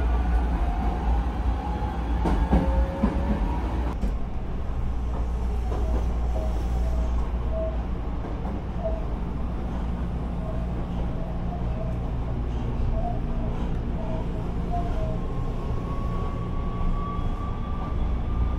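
Hankyu electric train pulling away and running, with a steady low rumble. The traction motor whine rises in pitch as the train accelerates in the first few seconds, and rises again near the end.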